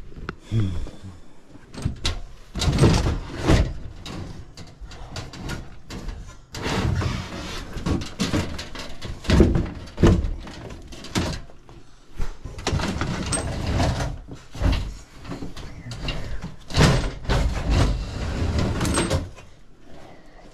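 Irregular knocks, bumps and scraping of the sheet-metal cabinet of an air handler being worked loose from the wall, in uneven bursts with short pauses between.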